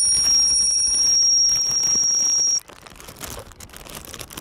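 A loud, steady high-pitched tone that cuts off suddenly about two and a half seconds in, leaving faint background noise.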